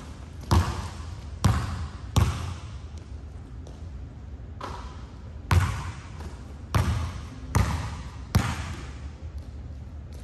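Basketball bouncing on a hardwood gym floor, single hard bounces roughly a second apart with a short lull in the middle, each echoing around the hall.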